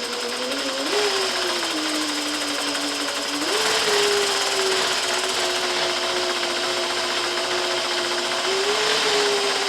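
Juki 8700 industrial sewing machine running under its motor while its bobbin winder fills a bobbin: a steady whine over a busy mechanical clatter, stepping up in pitch about a second in and again about three and a half seconds in.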